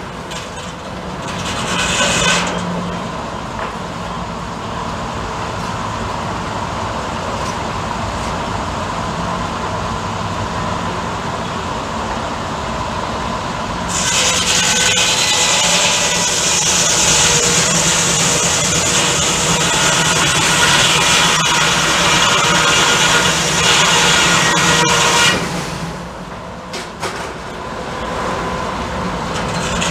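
Sawmill running with a steady hum. About halfway through, the saw blade bites into a log and a loud, hissing cutting sound rises over the hum for about ten seconds, then drops back to the running sound.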